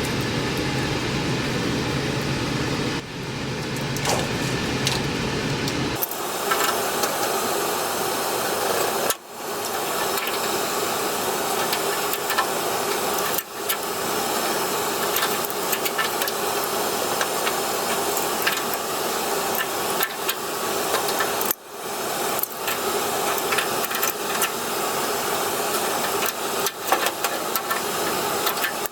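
Pump pliers clinking and rattling on a water heater's drain valve as it is worked loose, over a steady rushing noise. A low hum drops away about six seconds in, leaving a brighter rush.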